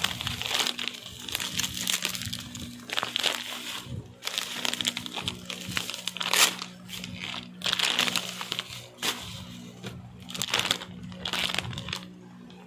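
Bubble wrap and plastic packaging crinkling in irregular bursts as hands pull it off a bag of candy, with steady background music underneath.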